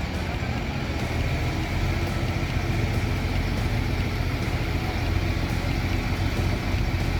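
A vehicle engine running at a steady speed, a little louder from about a second in.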